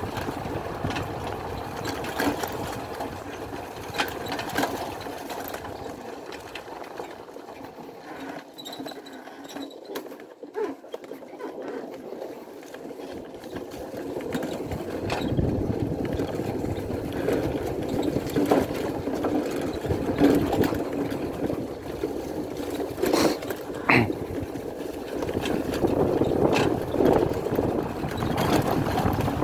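Pannonia P10's 250 cc single-cylinder two-stroke engine running under way on a rough dirt track. It drops quieter for several seconds in the middle, then picks up again, with a few sharp knocks near the end.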